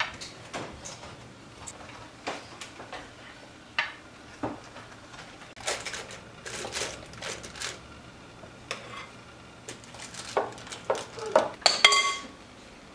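Dishes and metal utensils clattering: scattered knocks and clinks, busier in the second half, with a ringing clink about twelve seconds in.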